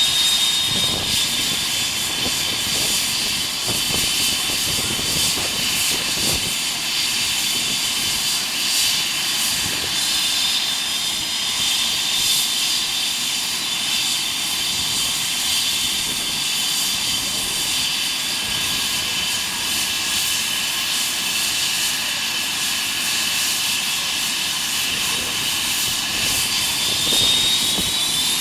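Airbus EC135 air ambulance helicopter running on the ground with its rotor turning: a steady twin-turbine and Fenestron whine over rotor rumble. The whine rises slightly in pitch near the end as it prepares to lift off.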